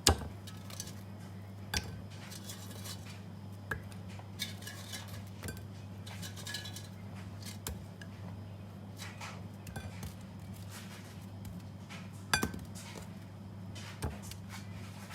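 Dishes and cutlery clinking: scattered knocks and clinks of plates and utensils being handled, the sharpest right at the start and about twelve seconds in, over a steady low hum.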